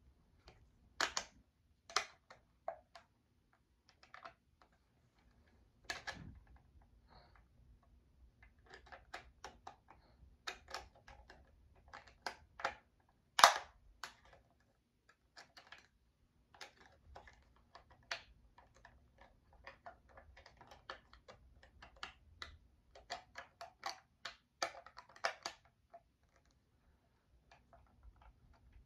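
Buttons on a talking alarm clock being pressed and handled: an irregular run of small plastic clicks and taps, the loudest about halfway through.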